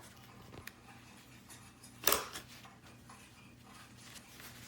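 Nose sprocket of a new 12-inch chainsaw bar turned by hand with the chain on: a few faint clicks, then one loud short clatter about two seconds in. The sprocket does not turn freely, a sign of a faulty bar nose or chain fit.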